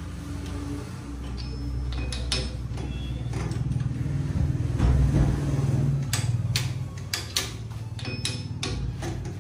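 A machine running with a low, steady hum that grows to its loudest about halfway through, with sharp metallic clinks and knocks, mostly in the second half.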